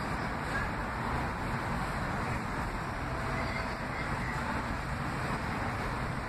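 Steady rumble of an R179 subway train pulling away along elevated track, blended with city traffic noise.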